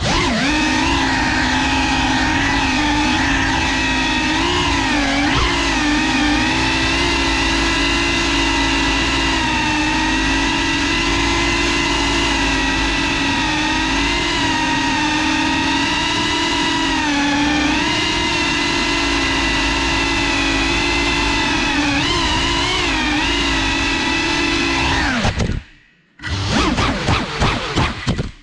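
Brushless motors and ducted propellers of a Cinelog 35 cinewhoop FPV drone whining steadily in flight, the pitch dipping and rising with throttle changes. Near the end the whine cuts out for a moment, comes back in choppy bursts, then stops.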